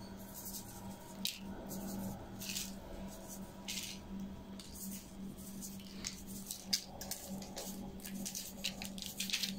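Faint, scattered light pattering and rustling as sesame seeds are sprinkled by hand onto egg-washed pide dough on a parchment-lined baking tray, over a steady low hum.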